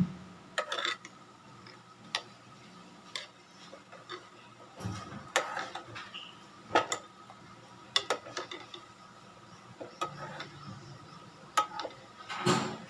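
Metal ladle clinking against the sides of a stainless steel pot while stirring chicken and leaves in broth: about a dozen sharp, irregular clinks.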